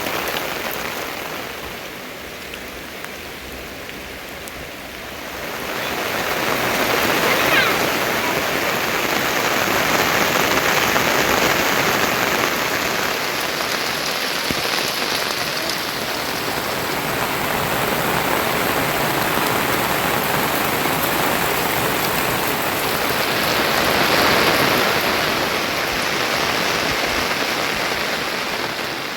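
Steady rain falling, growing heavier from about six seconds in.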